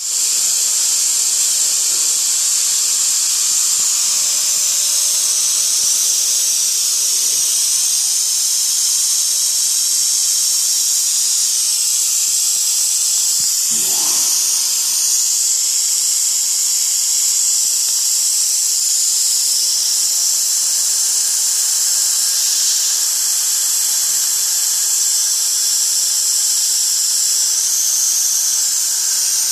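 CNC router mist coolant nebulizer spraying with a steady loud hiss of compressed air, with a high-pitched whine that wavers slightly in pitch. A brief knock about halfway through.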